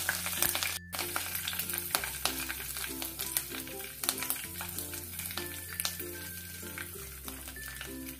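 Curry leaves, cumin and white sesame seeds sizzling and crackling in hot oil in a wok, the crackle slowly dying down, with a split-second gap about a second in. Background music with a steady bass line plays underneath.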